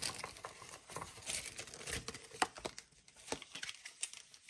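Foil booster pack wrapper crinkling and rustling as it is handled, a scatter of sharp crackles, busiest in the first half.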